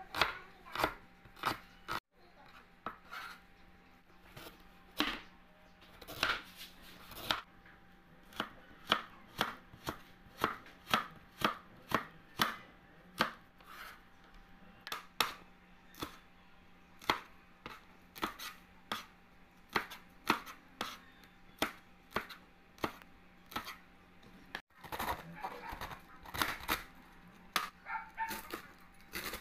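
Wide-bladed kitchen knife chopping vegetables on a plastic cutting board: a steady run of sharp chops, about two a second.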